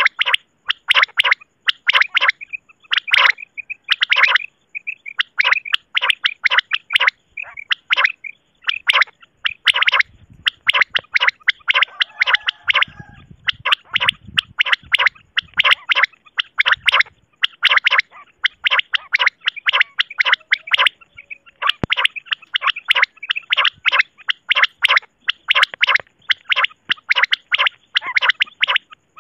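Common quail (batair) calling over and over, a fast run of short, sharp notes packed in clusters with only brief pauses between them.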